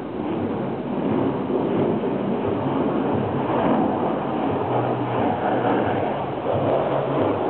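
Twin-engine Boeing F-15 Eagle fighter jet roaring through a flypast, a loud, steady, dense rumble that the uploader takes for afterburners.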